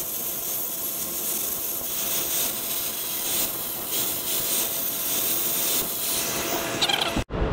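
Angle grinder running steadily against the steel flighting of a tulip auger, cleaning the metal before tack welding, with a constant whine. It shuts off abruptly near the end.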